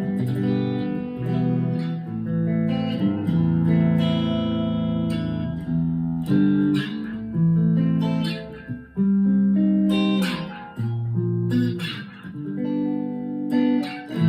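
Chapman ML3 Pro Thinline electric guitar played clean through a small amp, with both pickups combined in parallel: a series of chords strummed and left to ring, with a few short breaks between them. The tone is dark but meaty.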